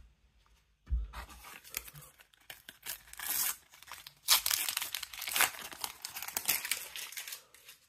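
A Panini sticker packet being torn open by hand and its wrapper crinkled, in a run of irregular tearing and crackling bursts after a brief quiet start.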